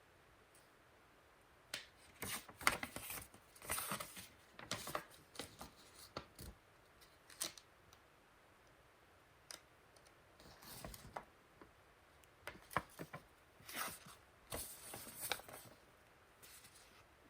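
Hands handling packaging and small parts: crinkling, rustling and light clicks, coming in two spells.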